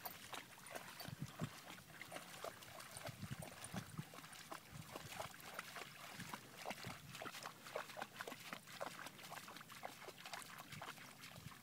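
Dogs walking and trotting through shallow water, their paws making a run of small, irregular splashes.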